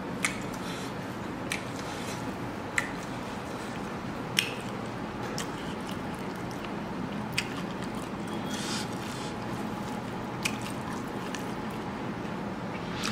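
Close-up eating sounds of a person eating rice by hand: chewing and wet mouth smacks, with a sharp click every second or two, over a steady hiss.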